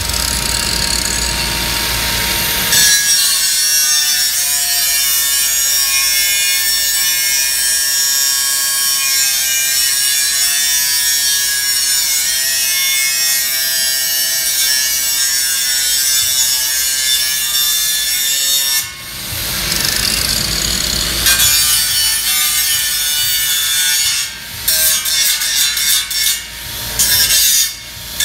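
Handheld angle grinder grinding a steel beam: the disc's harsh hiss on the metal over the motor's steady whine, breaking into short bursts with brief gaps near the end.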